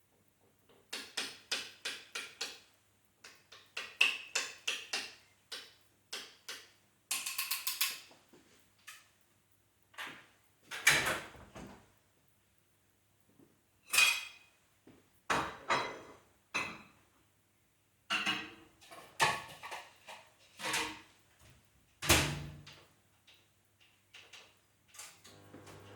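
A string of short clicks, knocks and clatters in irregular clusters, like things being handled, opened and shut, with a brief buzzy rattle about seven seconds in.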